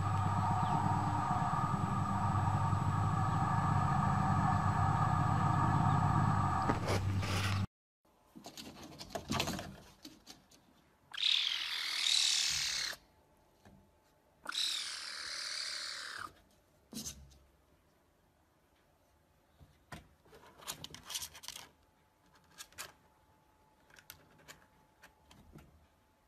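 Caracal kitten hissing twice, each hiss about a second and a half long with a short pause between. Before them a steady hum cuts off abruptly about eight seconds in, and after them come a few faint clicks and knocks.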